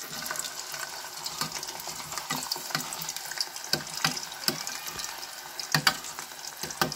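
Raw green banana strips sizzling as they drop into hot oil in an aluminium pot, with frequent sharp pops. A metal ladle stirs them, knocking against the pot, loudest twice near the end.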